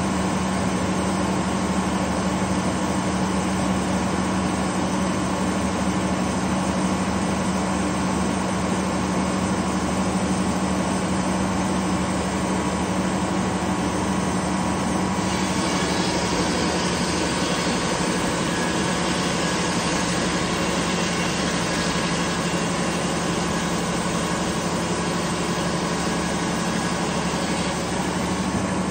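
Detroit Diesel engine running steadily, powering a large circular sawmill blade that spins without cutting: a constant droning hum that turns brighter and harsher about halfway through.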